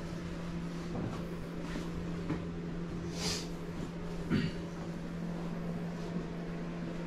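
Steady low machine hum, with a few light knocks and a brief hiss about three seconds in.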